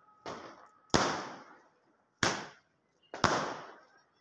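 Aerial fireworks bursting overhead: a softer bang, then three loud sharp bangs about a second apart, each trailing off over half a second.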